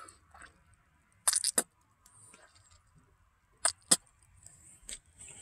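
Sharp clicks and light rattles from handling small objects: a quick cluster of clicks just over a second in, then two more near four seconds.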